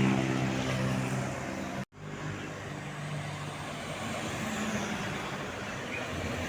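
Heavy bus diesel engines and road traffic passing close by. A deep, steady engine tone is loud for the first two seconds, then breaks off abruptly, and steadier, quieter traffic noise follows.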